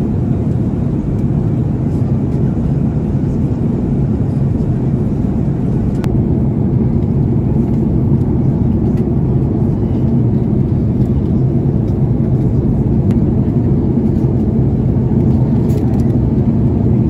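Steady in-flight cabin noise of an Airbus A330-200 airliner: an even, low rumble of engines and airflow heard inside the cabin at a window seat.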